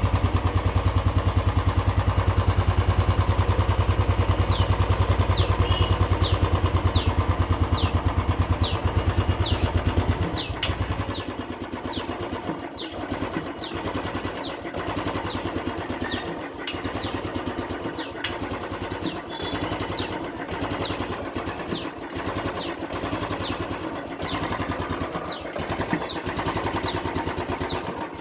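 Royal Enfield Classic 350 single-cylinder fuel-injected engine idling with an unstable, hunting RPM, which the owner puts down to an ignition problem and misfiring. About ten seconds in, the deep low thump drops away and the running turns uneven, with irregular dips.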